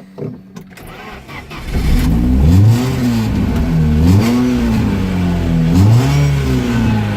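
Car's electric fuel pump humming briefly, then the engine cranking and catching on its first start after ten months parked. It is revved up and down three times and then keeps running.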